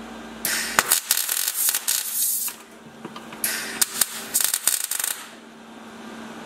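MIG welder laying spot welds on a car's steel sill flange: two bursts of arc crackle with sharp pops, each about two seconds long, separated by a short pause.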